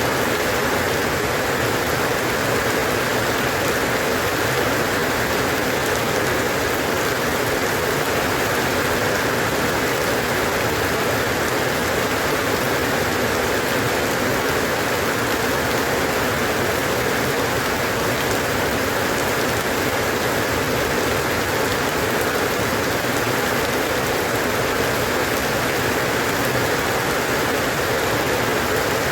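Steady rain falling on a surface, an even hiss with no breaks or changes.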